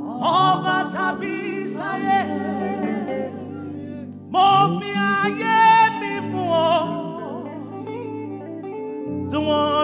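Gospel singing over held instrumental chords, the voice coming in phrases with vibrato: one just after the start, one about four seconds in and another near the end.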